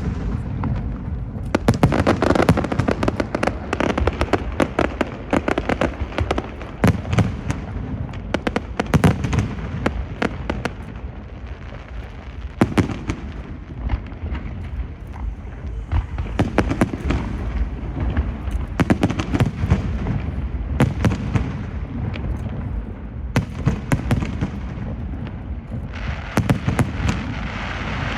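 Fireworks show going off without a break: a dense barrage of sharp bangs and crackles, several a second, over a steady low rumble.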